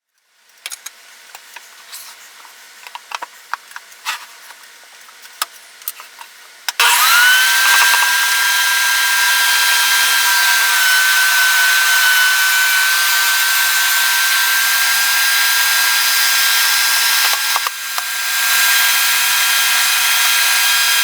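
A few clicks and knocks of handling, then about seven seconds in an electric power tool's motor switches on, spins up quickly to a steady high whine and keeps running, with a short dip in level near the end as if briefly loaded.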